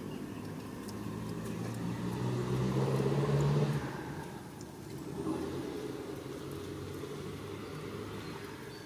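A motor vehicle's engine running as it passes, growing louder to a peak about three seconds in and then fading, with a fainter swell again a little later.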